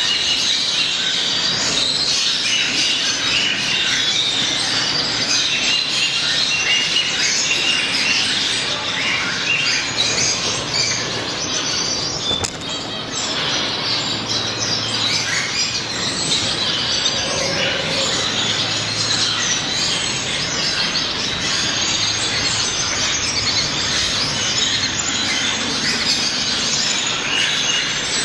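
A cage of blue-faced parrotfinches chirping constantly, a dense overlapping chatter of short high calls that never lets up.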